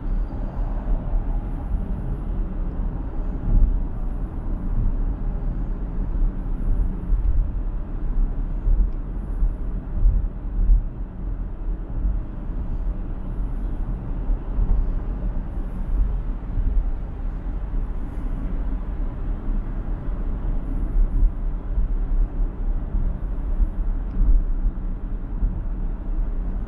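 Steady low rumble of road and tyre noise from a car driving at highway speed.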